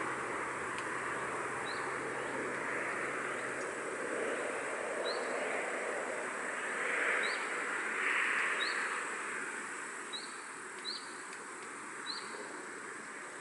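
Wind blowing steadily through trees, swelling for a few seconds past the middle, with a small bird giving short, rising chirps about seven times. A faint low hum dies away about four seconds in.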